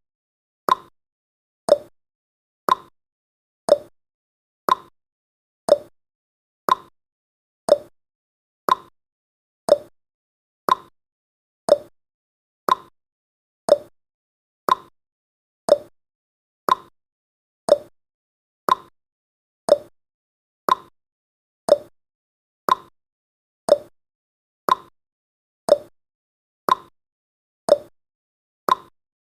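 Countdown timer's tick-tock sound effect: a short click once a second, alternating between a higher and a lower pitch.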